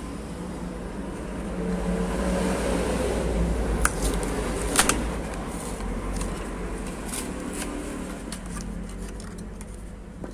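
Plastic blister of a Hot Wheels card crackling and clicking as it is pried off the cardboard backing, with two sharp snaps about four and five seconds in and a run of smaller clicks later, over a steady low background hum.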